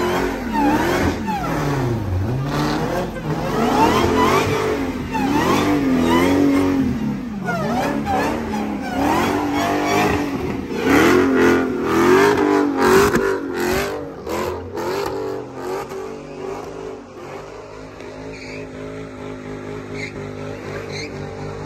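Dodge Challenger engine revved hard again and again during a burnout, its pitch rising and falling every second or two over the hiss and squeal of spinning rear tyres. After about sixteen seconds it drops back to a quieter, steadier engine note.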